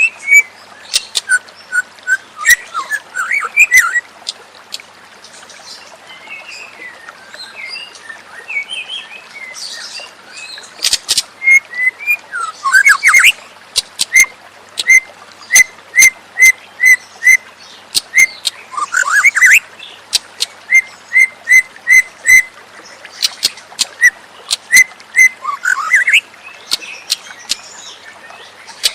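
White-rumped shama (murai batu) singing: phrases of quick swooping whistles, sharp high clicks and runs of short, evenly repeated notes at about two a second.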